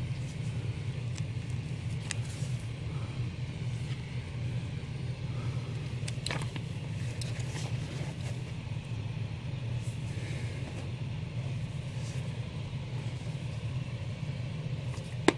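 Steady low hum of the room's background, with a few faint rustles and taps as comic books and cardboard are handled.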